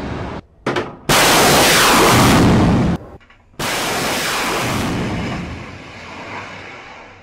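Naval Strike Missile's solid rocket booster roaring as the missile climbs away after launch. The loud roar breaks off abruptly twice, then fades away over the last few seconds.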